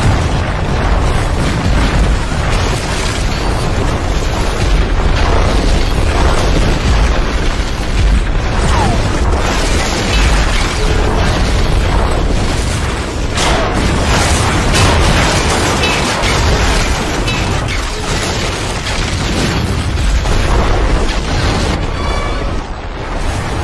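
Video-game explosion effects going off one after another in a dense, continuous barrage, with a heavy low rumble throughout.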